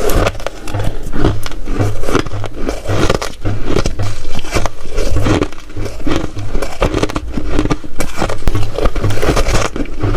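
Hard ice being bitten and chewed close to the microphone: a continuous run of sharp, crackling crunches.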